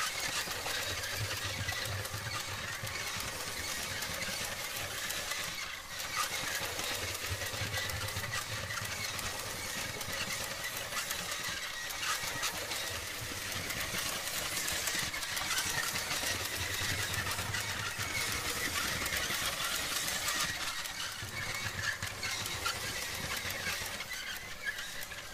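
Vintage 1970s LEGO 12-volt train motor running steadily as the locomotive pulls its cars around plastic track, a constant mechanical whir over a low hum.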